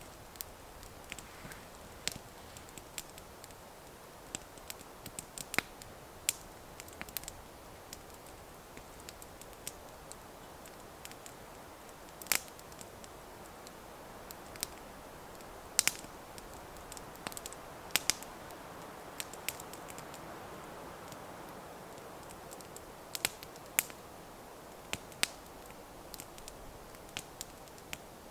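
Small wood fire in a hobo stove crackling, with sharp irregular pops every second or so over a soft steady hiss.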